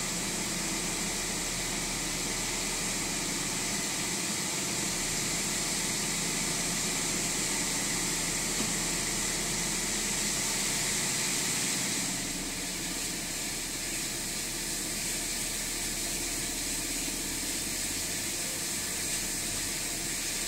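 Vehicle engine idling with a steady hiss over a low running note, which the owner calls a rough idle. The sound drops a little about twelve seconds in.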